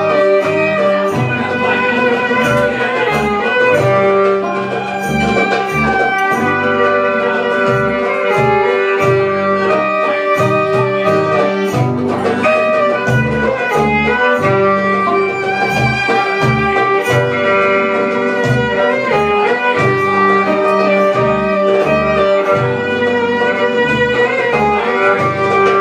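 Live band playing belly-dance music: a violin carrying the melody over plucked strings and a plucked bass line.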